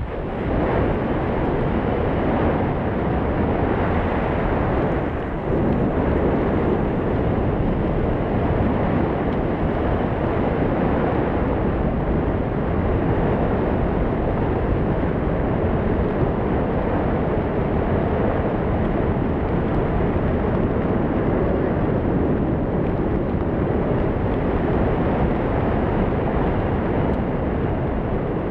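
Steady rush of wind over an action camera's microphone during a descent under a ram-air parachute canopy, with a brief lull about five seconds in.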